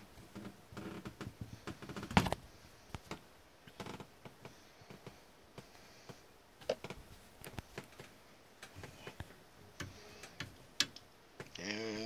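Scattered light clicks and knocks of hands handling hardware, irregular and unrhythmic, with one sharper knock about two seconds in.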